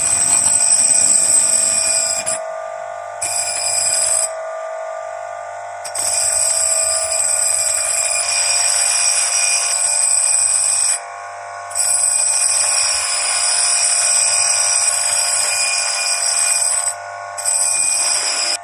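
Steel axe blade pressed against a spinning bench grinder wheel in several passes, a high ringing whine over the machine's steady hum. The whine drops away for short moments between passes, twice for a second or more.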